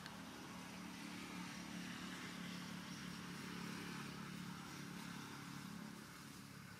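A faint steady motor hum that grows slightly louder toward the middle and eases off near the end.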